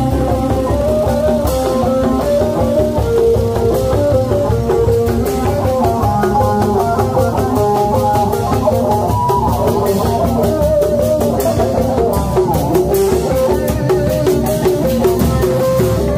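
Loud instrumental band music with a plucked, guitar-like lead melody over drums, played through a large loudspeaker stack at a street procession.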